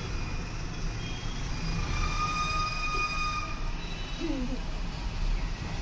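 Distant traffic: a steady low rumble with a few long, level high-pitched tones.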